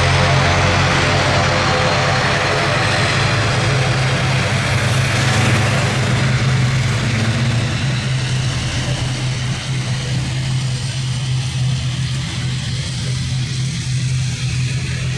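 Airbus A350-1000 jet engines running loud, the rushing engine noise fading away over the first half and leaving a steady low hum.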